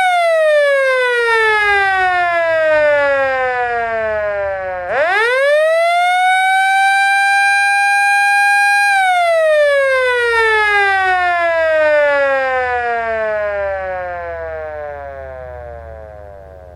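Federal Sign & Signal Model L siren: a single steady wailing tone that falls in pitch as it slows down, then spins quickly back up to full pitch about five seconds in. It holds there for about four seconds, then winds down again, falling in pitch and fading out near the end.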